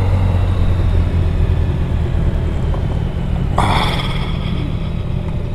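Motorcycle engine running at low revs as the bike is eased into a parking space, a steady low rumble that drops after about a second. A short rasping noise comes about three and a half seconds in.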